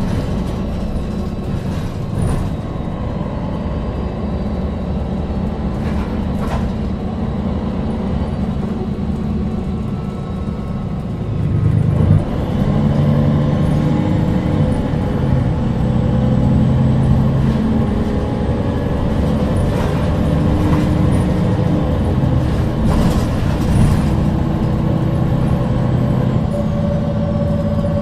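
MAN NG313 articulated city bus running, its engine note steady at first. About twelve seconds in the engine grows louder and its note shifts as the bus pulls harder. A few brief knocks and rattles sound along the way.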